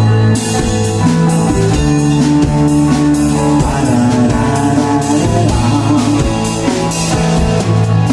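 Live rock band playing an instrumental passage of a song: sustained guitar chords over bass and a drum kit, with no singing.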